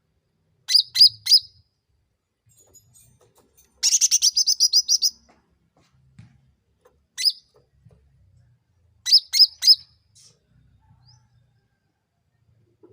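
Cucak ranting (black-headed bulbul) calling: a quick group of three sharp, high notes, then a fast chattering trill lasting just over a second, a single note, and another group of three sharp notes.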